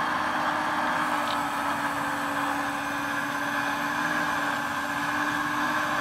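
Radio-controlled Liebherr R 960 SME model excavator running as it digs soil: a steady mechanical hum holding one constant low tone.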